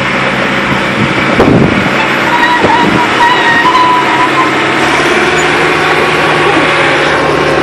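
Caterpillar 963 crawler loader's diesel engine running as the machine moves and turns on its tracks, with a few clanks about a second and a half in and a thin whine for a couple of seconds in the middle. The engine note shifts about five seconds in.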